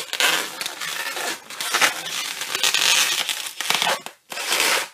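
Hands squeezing, rubbing and twisting a red 260Q latex modelling balloon: a loud, dense rubbing and rustling of the stretched latex, with a brief pause near four seconds.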